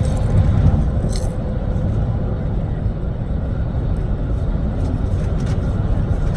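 Steady low rumble, with a few faint brief crackles, the clearest about a second in.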